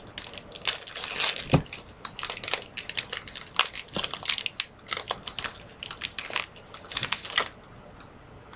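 Trading-card pack wrapper being torn open and crinkled by hand: a dense run of sharp crackles with one duller knock, dying away near the end.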